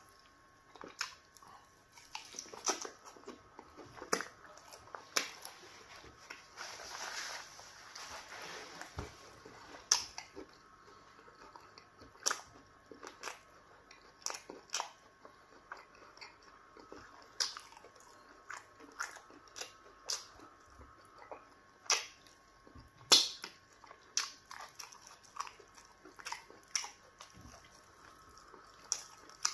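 Close-up mouth sounds of eating by hand: irregular wet smacking and clicking of lips and tongue while chewing meat from an okra stew, with one longer, steadier stretch of sound about seven to nine seconds in.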